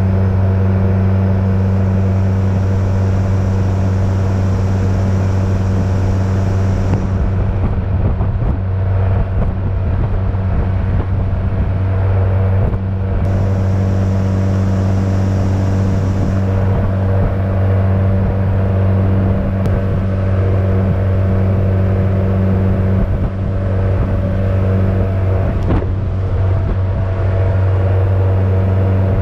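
Outboard motor on a jon boat running steadily at cruising speed, a loud, even drone that holds one pitch.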